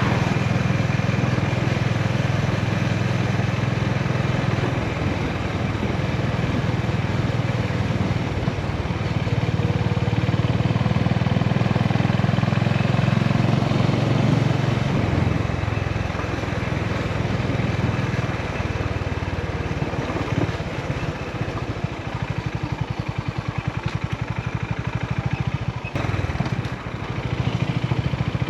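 Honda GB350's air-cooled single-cylinder engine running on the move. In the second half the revs drop and the separate exhaust pulses come through.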